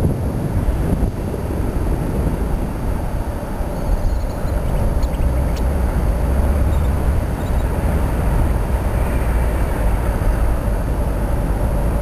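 Wind buffeting the microphone of a paraglider in flight: a steady, heavy rumble of airflow noise.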